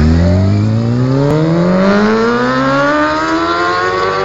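Honda CBR600 F4 inline-four engine accelerating hard, its revs climbing steadily in one long pull through a single gear.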